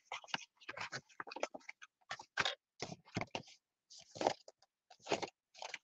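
Paper envelopes rustling and sliding against each other as they are shuffled and laid out by hand, in short irregular scrapes.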